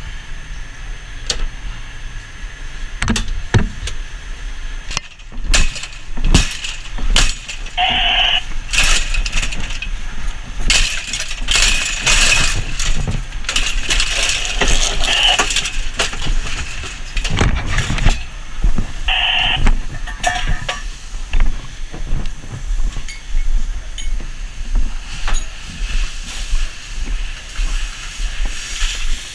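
Irregular knocks, clicks and clatter as a firefighter handles the electrical panel and moves along a fence and around a house. It thickens into dense clattering in the middle and is broken by two short electronic tones about 8 and 19 seconds in.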